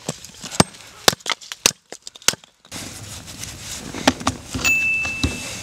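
A hatchet splitting kindling on a wooden stump: about five sharp knocks over two and a half seconds. After that come quieter scattered clicks, with a thin steady high tone for about a second near the end.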